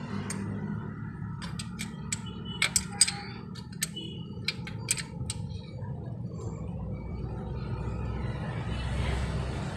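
Hand tools clicking and tapping sharply on the metal of a Toyota Corolla's cylinder head, irregularly through the first five seconds or so, over a steady low hum. A soft rushing noise swells near the end.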